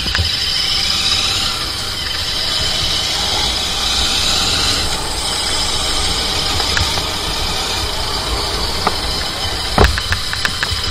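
Royal Enfield Interceptor 650's parallel-twin engine running steadily under way, heard from the rider's position. A few short sharp knocks come near the end.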